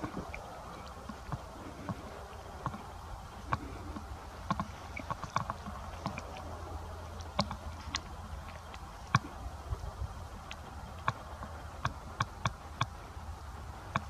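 Irregular sharp clicks and ticks, a few much louder than the rest, over a steady low rumble and a faint hiss.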